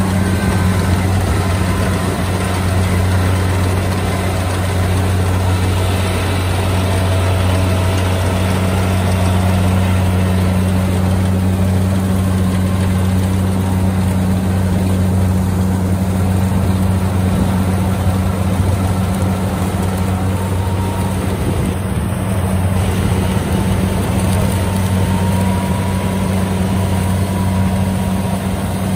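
Kubota rice combine harvester running at work while it cuts and threshes rice: a loud, steady diesel drone that stays even throughout.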